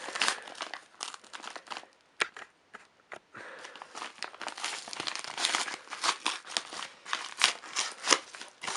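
Parcel packaging crinkling and rustling as it is opened by hand, with a short pause a little over two seconds in.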